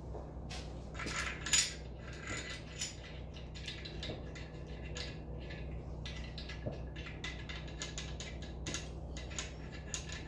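Steel engine main-bearing caps and their bolts clinking and rattling as they are handled, a scatter of short metallic clinks with a sharper one about a second and a half in, over a steady low hum.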